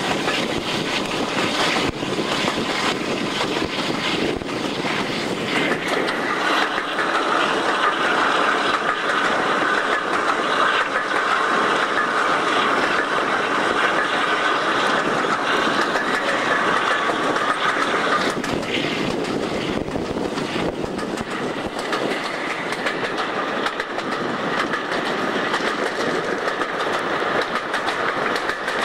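Railway coach running along the line, heard from an open window: steady rolling noise with the wheels clicking over rail joints, and a higher-pitched tone joining for a stretch in the middle.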